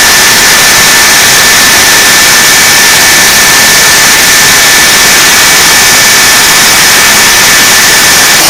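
A jet turbine running steadily and very loud: an even rushing noise with a steady high whine held on one pitch.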